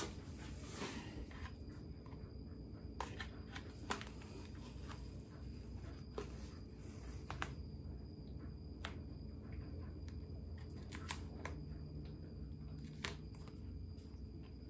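Faint handling sounds: scattered light clicks and a few short stretches of soft rustling over a low steady hum.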